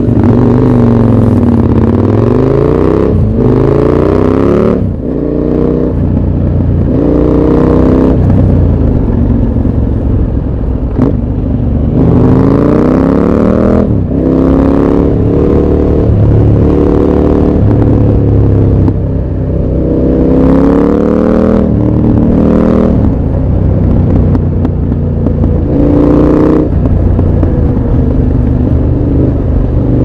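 KTM 1190 Adventure R's V-twin engine under hard riding. Its pitch climbs again and again, each climb cut off by a brief break and drop (gear changes), then falls away and rises through the bends.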